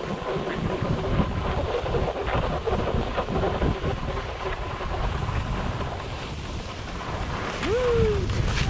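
Wind buffeting the helmet camera's microphone at speed, over the steady scrape of skis carving packed, groomed snow. Near the end a short tone rises and falls.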